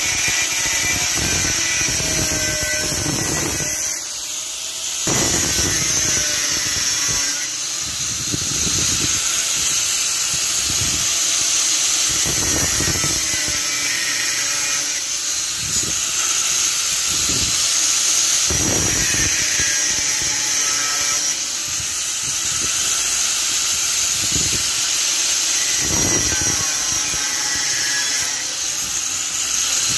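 Angle grinder with an abrasive cut-off disc cutting through steel threaded rod, the motor's whine shifting in pitch as the disc bites into the metal. About four seconds in it winds down briefly and then speeds up again, with a few more short dips between cuts.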